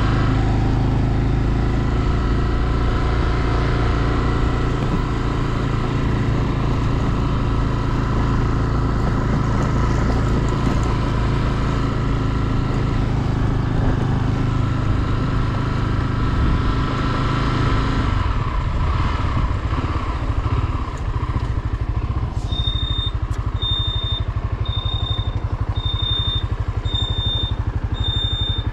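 Honda CB 250F Twister single-cylinder motorcycle engine running at a steady cruise; after about eighteen seconds the engine note drops to a slower, pulsing beat, and near the end a high electronic beep starts repeating about once a second.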